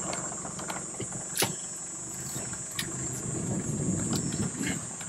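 Safari vehicle's engine running at low speed, with a steady low hum that swells briefly near the end. A few sharp clicks sound over it, the loudest about a second and a half in, and a steady high-pitched hiss runs underneath.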